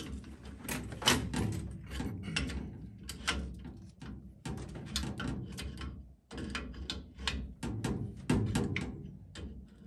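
Repeated metallic clicks and knocks of a pipe wrench turning a brass gas fitting onto threaded gas pipe, the fitting being snugged up, over background music with a drum beat.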